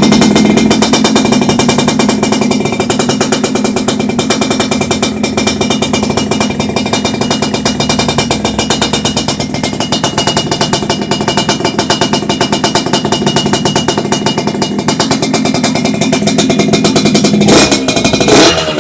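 Yamaha RX-King's two-stroke single-cylinder engine running at a steady idle through a chrome lobster-style aftermarket exhaust, with a rapid pulsing exhaust note. Near the end a short rev blip rises and its pitch falls back.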